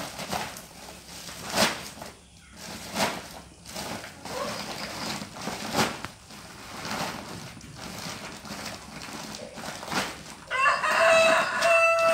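Rustling and crinkling of a woven plastic sack being handled, in short irregular bursts, then a rooster crowing once near the end, the loudest sound.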